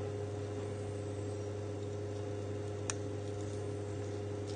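Steady low electrical hum, with one faint click about three seconds in as a small kitchen knife cuts the core out of a soft poached pear on a wooden board.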